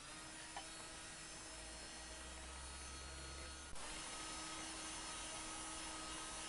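Faint steady electric hum with a low tone, shifting slightly in pitch and level a little under four seconds in.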